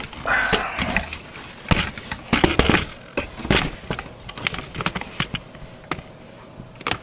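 Irregular clicks, knocks and short scrapes of plastic and metal parts being handled inside a desktop computer case.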